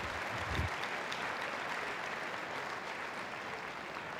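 Crowd applauding, a steady patter of many hands clapping that slowly dies down.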